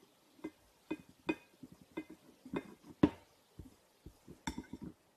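Metal fork clinking and tapping against a ceramic bowl while turning a slice of bread soaking in beaten egg: a dozen or so light, irregular clicks, the loudest about three seconds in.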